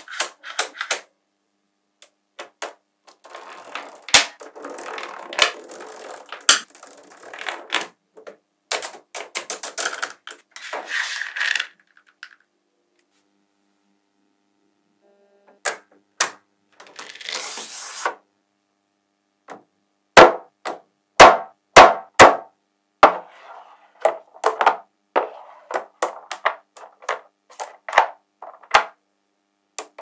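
Small magnetic balls clicking and clacking as sheets of them are laid down and snapped into place, with rattling scrapes as the balls shift against each other. After a few seconds of quiet near the middle comes a quick run of the loudest snaps.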